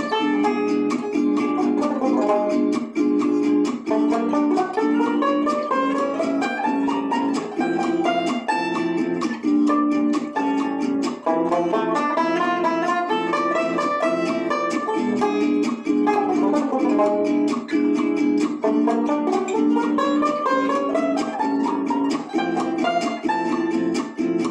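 Tenor banjo picked with a plectrum, playing quick single-note runs that rise and fall over a bossa-style backing track of steady repeated chords.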